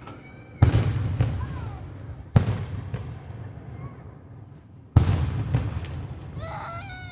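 Aerial fireworks bursting: three loud booms about two seconds apart, each followed by a rumbling echo that dies away.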